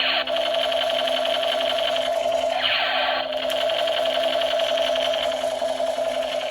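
Battery-powered toy gun running with a steady, rapid mechanical buzzing rattle.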